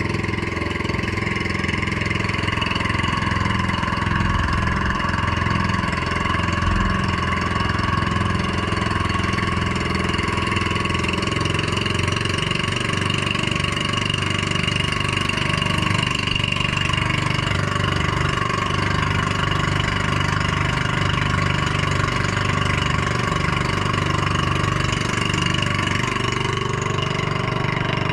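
The small engine of a motorized outrigger fishing boat running steadily at an even speed.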